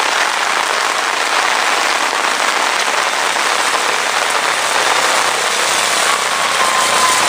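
Steady heavy rain falling and splashing on surfaces, a dense even hiss. A faint thin whine joins near the end.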